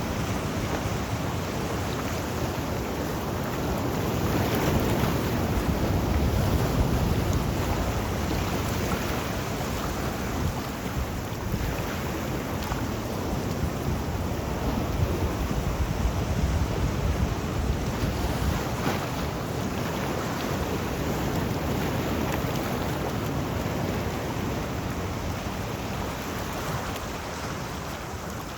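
Sea waves washing in a continuous surf noise that swells louder around four to seven seconds in, with low wind rumble on the microphone.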